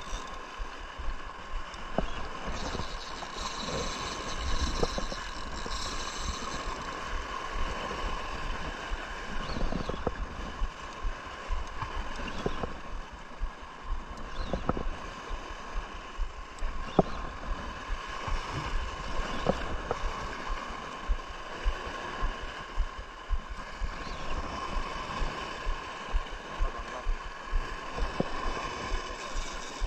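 Penn Fierce 6000 spinning reel being worked against a hooked barramundi: a steady mechanical whir with repeated sharp clicks, over low wind rumble on the microphone.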